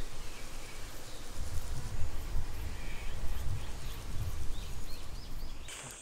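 Outdoor rural ambience: a steady low rumble with a few faint, short high chirps.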